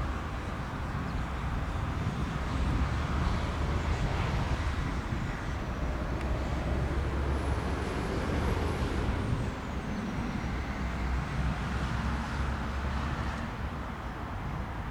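Steady outdoor rumble, heaviest in the low end, with a faint high whine that slowly rises and falls over several seconds.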